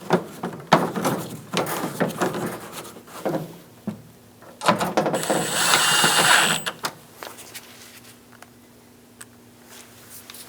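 Handling knocks and clicks as a plastic trim piece is fitted, then a cordless drill-driver runs for about two seconds, driving in a Phillips screw.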